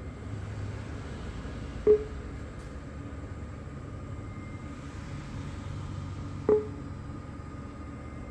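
ATM touchscreen key-press beeps: two short beeps about four and a half seconds apart as on-screen buttons are pressed, over a steady low hum.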